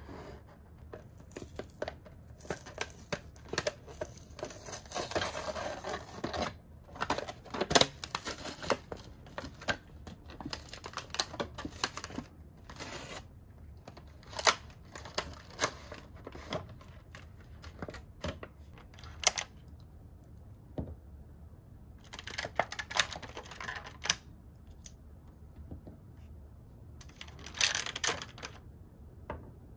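Toy packaging being opened by hand: tearing and crinkling of cardboard and plastic, with many small sharp clicks and taps. The handling comes in bursts, with a couple of quiet pauses in the second half.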